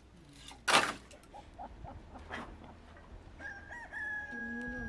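A rooster crowing, one long held call starting about three and a half seconds in. Just under a second in, a short loud burst of noise.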